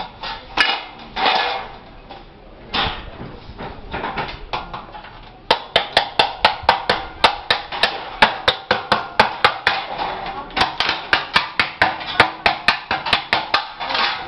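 Hand hammer striking the frame of a gypsum ceiling: a few scattered knocks, then steady rapid hammering from about five seconds in, about three blows a second.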